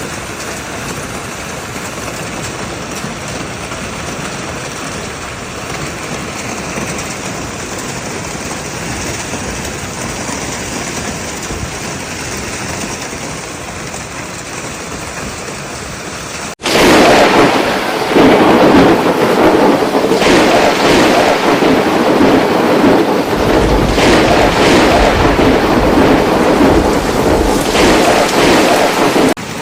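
Heavy hail falling in a storm, a steady hiss of stones and rain. About halfway through, after a cut, it becomes much louder and denser, with hailstones pelting a surface close by.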